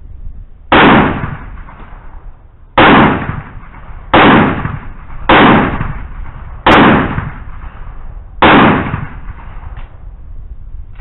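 SDX semi-automatic 12-gauge shotgun fired six times, one shot every one to two seconds, each a loud, sharp blast that dies away over about half a second. A faint click follows the last shot.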